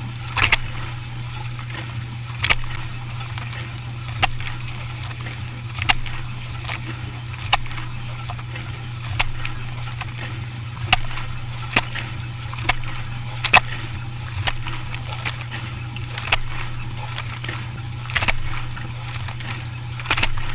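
Dishwasher running: a steady low hum with water sloshing, and sharp clicks roughly every one to two seconds.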